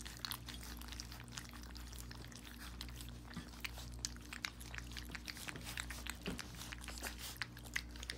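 Several young puppies lapping and chewing gruel from a stainless steel pan: a fast, irregular run of small wet clicks and smacks.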